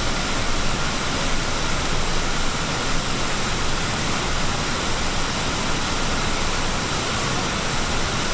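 Bald River Falls, a largely frozen waterfall, running with a steady rushing noise, its water still flowing under the ice.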